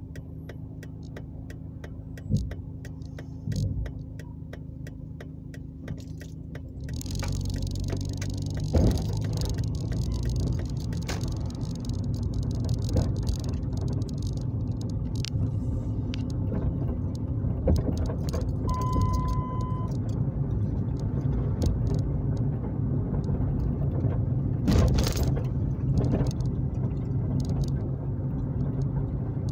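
Car interior: a steady low engine hum with light rapid ticking while stopped, then engine and road noise rise about seven seconds in as the car pulls away and drives on. A short single-pitch beep of about a second sounds in the middle.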